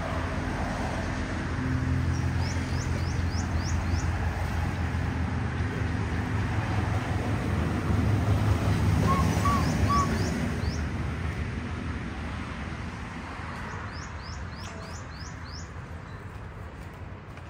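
Street traffic rumbling low and steady, loudest around the middle, while a small bird calls in three quick runs of about six high chirps each.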